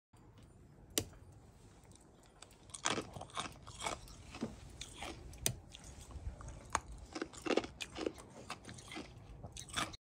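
Footsteps crunching in deep snow: an irregular run of crunches starting about three seconds in, with a few sharp clicks among them.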